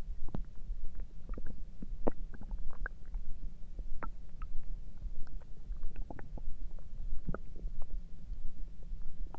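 Human stomach gurgling: a steady low rumble with many short pops and squeaky gurgles scattered irregularly throughout.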